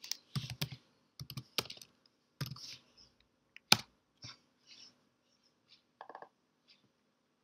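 Computer keyboard keys clicking as a short command is typed, with one sharper, louder keystroke about four seconds in, then a few scattered lighter clicks.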